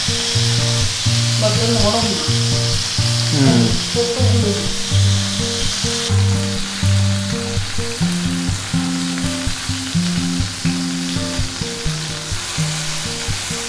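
Fritters sizzling as they deep-fry in hot oil, a steady hiss that eases about six seconds in. Background music plays underneath.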